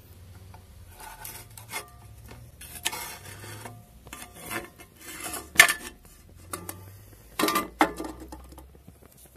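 A metal spoon on a long handle scraping and knocking across a cast-iron wok and the cooling aluminum casting inside it, in a run of separate rasping strokes. The loudest is a sharp knock about five and a half seconds in.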